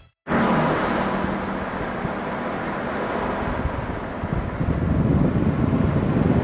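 Steady road and wind noise of a Ford Raptor pickup driving along a paved road, heard from inside the cab, with a low engine hum under the rush of wind.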